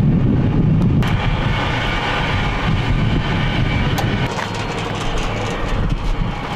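Steady jet engine noise on an airfield: a deep rumble with a faint high whine over it, changing abruptly about a second in.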